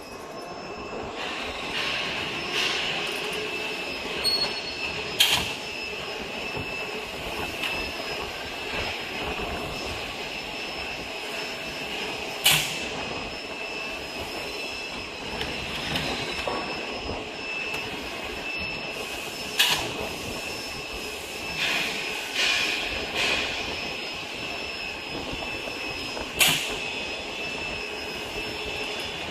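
Jerry-can palletizer machine running, with a steady mechanical hum and a high whine. A sharp clack sounds about every seven seconds, with a few smaller knocks in between.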